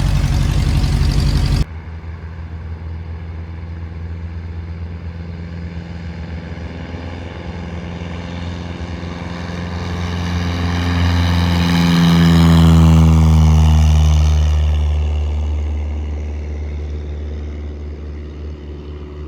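Piper Archer's four-cylinder piston engine idling steadily, heard from inside the cabin with the window open. Another propeller plane's engine swells in about ten seconds in, passes close with its pitch dropping, and fades away. The level drops abruptly about two seconds in.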